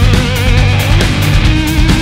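Loud heavy rock music with electric guitar and a steady drum beat.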